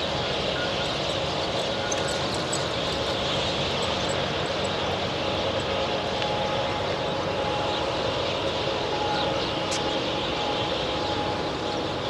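Steady roadside background noise, with a few faint high bird chirps about two to five seconds in.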